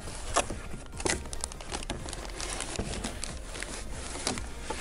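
Plastic wrapping crinkling and rustling in irregular bursts of small crackles as a plastic-wrapped laptop bag is pulled out of a cardboard box, with the box's flaps shifting and scraping.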